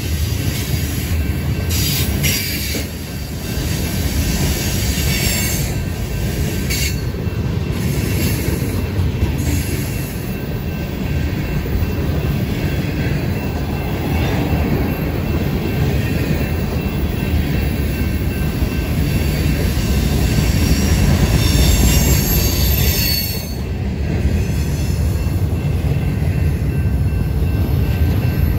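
Freight train rolling past on the Tehachapi Pass: a steady, loud low rumble of the cars on the rails, with high-pitched wheel squeal that comes and goes and a few sharp clicks.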